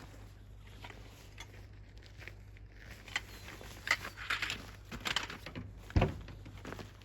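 Scattered crunching and knocking, as of footsteps and handling on gravel, growing busier about three seconds in, with one heavier thump about six seconds in.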